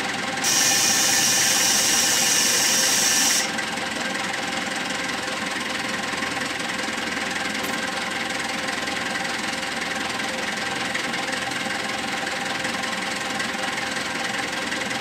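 Wheel loader's diesel engine idling steadily on a test run after servicing. Early on, a loud hiss lasts about three seconds, then cuts off, leaving the idle.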